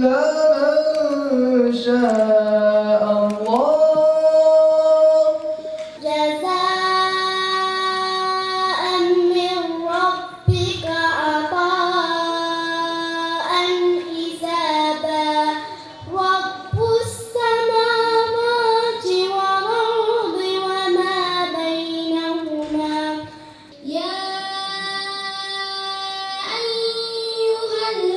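A child's voice reciting the Quran in melodic tajweed style, with long, drawn-out ornamented phrases that glide in pitch and short breaths between them.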